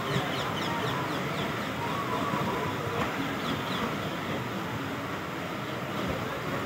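Loaded container flat wagons of a freight train rolling past: a steady rumble of steel wheels on the rails, with a few faint clicks.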